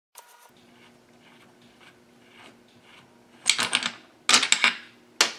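Metal chainsaw crankcase halves and parts being handled on a workbench: faint scattered clicks, then three bursts of clattering, rattling clacks in the last two seconds.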